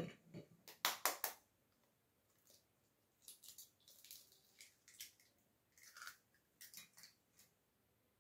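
Eggs being cracked into a glass mixing bowl: a few sharp taps of shell in the first second and a half, then softer crackling as the shells are broken and pulled apart.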